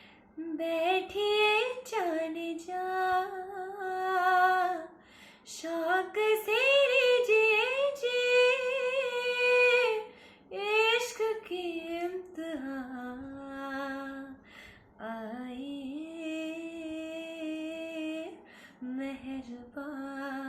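A woman singing a wordless vocal introduction: long, high, wavering held notes in several phrases, broken by short pauses, with almost no accompaniment heard.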